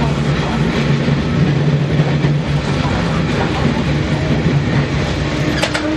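Fukui Railway 200 series tram running along street track, heard from inside the cab: a steady low hum with the rumble of wheels on rails, and a couple of sharp clicks near the end.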